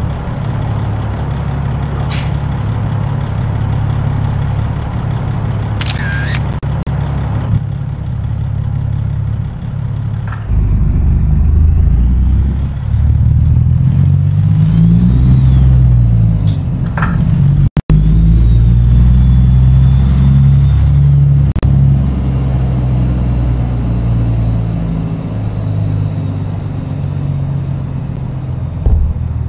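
Caterpillar C15 ACERT diesel of a Peterbilt 379 truck with loud pipes, running under way. About ten seconds in it gets louder and pulls harder, its pitch rising and falling, with a high whine above it. A few seconds before the end it eases off and the whine slowly falls away.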